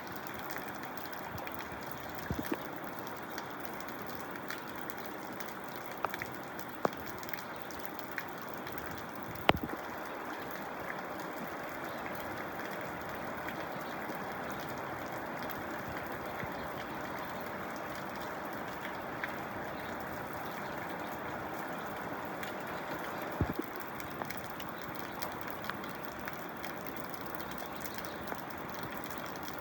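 Steady rain-like hiss of falling water, with a few sharp taps scattered through it; the loudest comes about nine and a half seconds in.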